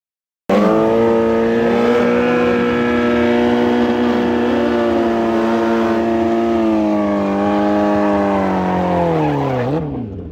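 Suzuki Hayabusa drag bike's inline-four engine held at steady high revs during a burnout, the rear tyre spinning in smoke. It starts abruptly about half a second in, and near the end the revs fall away.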